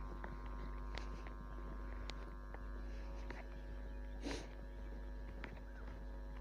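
A steady hum made of several constant tones, with faint scattered clicks and a short rustle about four seconds in.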